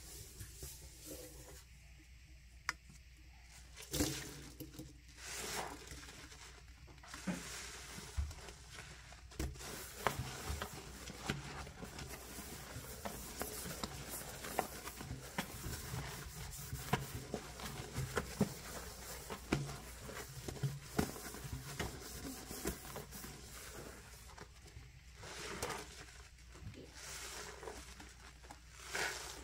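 A sponge scrubbing a stainless steel sink with wet powdered cleanser: a continuous wet, sudsy scrubbing with scattered sharp clicks and taps. Near the end the foamy sponge is squeezed out.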